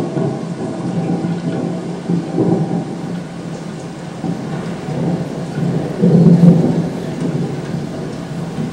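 Rolling thunder with steady rain, rumbling and swelling loudest about six seconds in.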